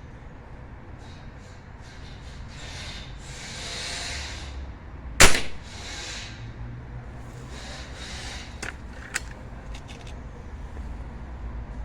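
A single shot from a .22 air rifle, a sharp crack about five seconds in that is the loudest thing here, followed a few seconds later by a couple of lighter mechanical clicks.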